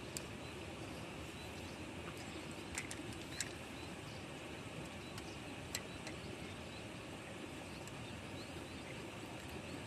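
Steady, low outdoor background noise with a few faint, sharp clicks around three seconds in and again near six seconds.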